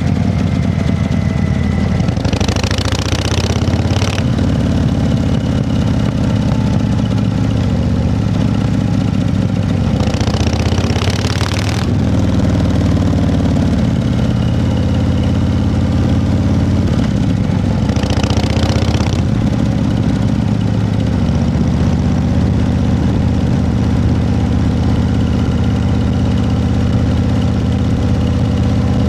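An engine running steadily at idle, with three short bursts of hiss over it, each a second or two long and several seconds apart.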